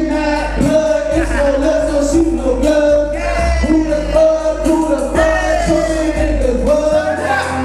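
Hip hop track playing loud with a heavy bass line and a sung, melodic vocal line over it.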